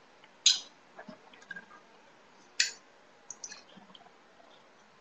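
Two sharp clicks about two seconds apart, with a few faint ticks between them, over quiet room tone.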